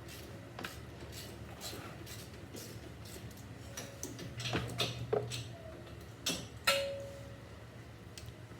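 Hand ratchet clicking as it works a 17 mm brake caliper bolt, with a few sharp metal-on-metal clinks from the socket and tools. One clink near two-thirds of the way through rings briefly.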